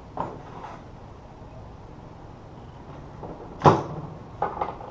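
Metal transmission parts and tools knocking against each other and the workbench as a manual gearbox is worked on by hand: a faint tap at the start, one sharp knock about three and a half seconds in, then two lighter taps.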